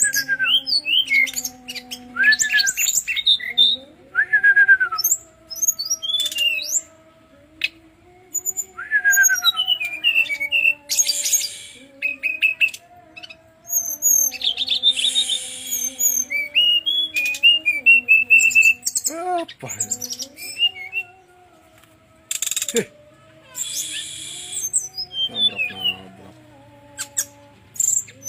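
Brown-chested jungle flycatcher singing a long, varied song of high whistles, slurred chirps, quick trills and a few harsh rasping notes, broken by short pauses.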